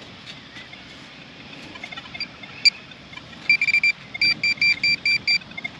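Metal detector giving short, high-pitched electronic beeps over a buried target, starting about halfway in and repeating quickly, about five a second.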